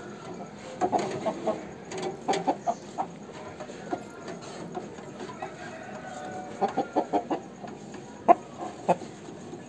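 Chickens clucking: short, quick clucks in runs of three to five, coming several times, with the loudest single cluck near the end.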